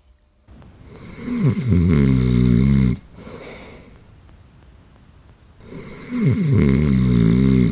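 A person snoring loudly: two long, rasping snores, each starting with a falling pitch. The second begins a little under six seconds in.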